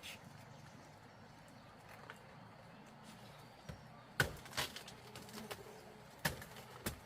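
A few sharp knocks over a faint steady background, the first about four seconds in and the rest spaced irregularly.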